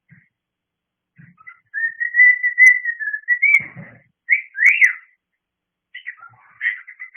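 Cockatiel calling for attention: first one long, level whistle, then two sharp rising-and-falling calls, then a run of short chirps. A faint low thump comes about halfway through.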